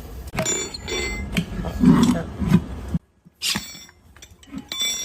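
Metal parts and tools clinking and knocking, several sharp clinks with a short high ring, and a louder dull knock about two seconds in. The sound cuts off abruptly about three seconds in, then more clinks come near the end.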